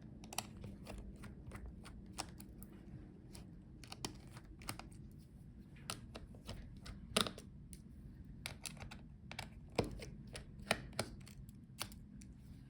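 Irregular light clicks and taps of a small screwdriver and tiny screws as the remaining screws are taken out of a laptop motherboard. A few sharper clicks stand out, about seven and ten seconds in.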